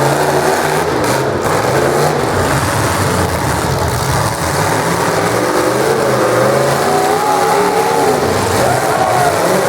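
Full-size demolition derby cars' engines revving hard, their pitch rising and falling as the cars accelerate and back off.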